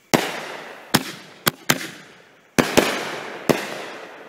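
Zombie Blaster single-break aerial ball shells bursting overhead: a run of sharp bangs over about three and a half seconds, each trailing off in a long rolling echo.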